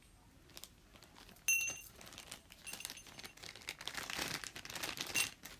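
A small silver-metal hand bell gives one short, bright ring about a second and a half in, and a faint ring again near the end. Between them, packaging rustles and crinkles as things are handled in the box.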